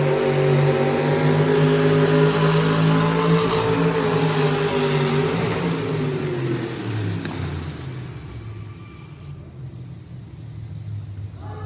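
Pulling truck's engine running hard at high revs as it drags a weight-transfer sled. The pitch drops after about five seconds, and the engine fades away over the last few seconds.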